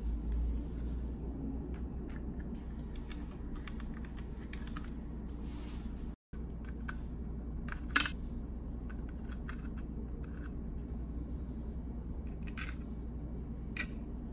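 Scattered light clicks and taps of a 3D-printed plastic control-panel cover, its metal bracket and small screws being handled and lined up by hand, with one sharper click about eight seconds in, over a steady low hum.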